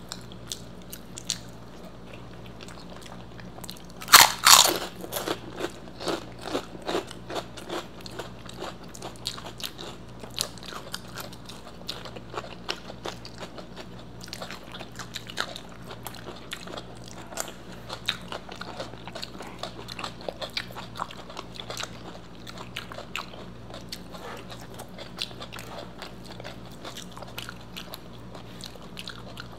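Close-miked eating: a loud crunching bite about four seconds in, then steady chewing with many small crunches and wet clicks, typical of crisp fried food such as papad or pakoda.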